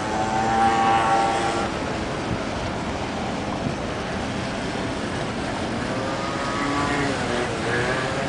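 Steady noise of boat engines and choppy water on a busy harbour. A pitched sound, like voices, comes in briefly near the start and again near the end.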